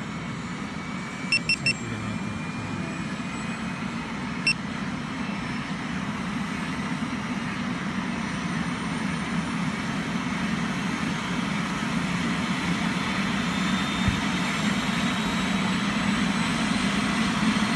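Single-engine turbine helicopter on the pad powering up, engine and rotor running with a faint whine that rises in pitch while the whole sound grows steadily louder. Three short beeps about a second and a half in, and one more beep a few seconds later.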